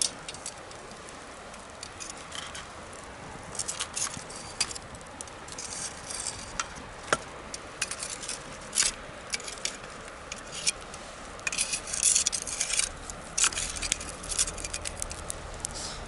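Wood bonfire crackling, with irregular sharp snaps and pops over a soft hiss, in clusters that come thickest in the second half. A faint low rumble builds near the end.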